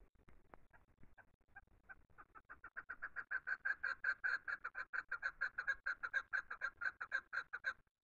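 Chukar partridge calling: a fast run of repeated 'chuck' notes, about five or six a second, starting faint and growing loud over the first few seconds. It cuts off shortly before the end.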